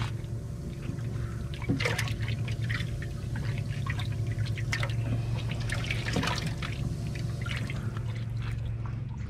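Water sloshing and splashing in a boat's live bait well as a hand reaches in and grabs a live pogy, in short irregular splashes over a steady low hum.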